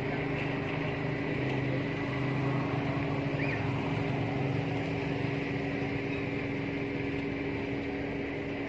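A motor running steadily: a constant droning hum that does not change in speed or loudness.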